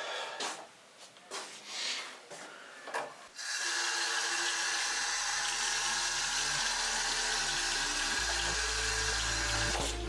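Rustling and handling noises, then from about three and a half seconds a tap running steadily into a bathroom sink. Low sustained synth notes and a deep drone fade in underneath, the drone growing louder near the end.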